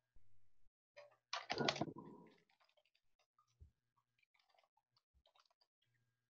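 Quiet room tone with faint, scattered clicks and one brief rustle about a second and a half in.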